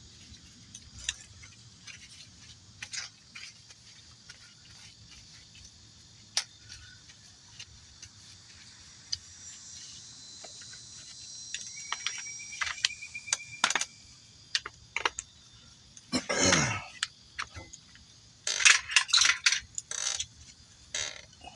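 Metal tools and hardware clinking and rattling while a car's front strut assembly is worked on: scattered sharp clicks, then a louder burst about two-thirds of the way through and a cluster of loud rattles near the end.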